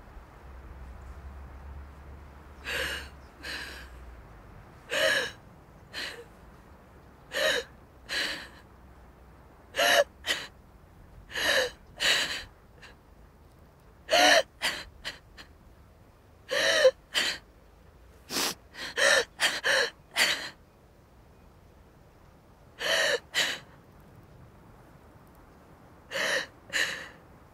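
A young woman sobbing, with short, gasping breaths that start about three seconds in and come in ragged pairs and clusters with pauses between.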